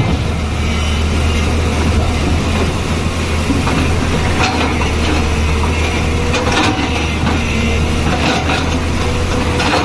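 Tata Hitachi crawler excavator's diesel engine running steadily under working load as the bucket digs into a pile of broken rock. Stones clatter and knock against the bucket several times from about four seconds in.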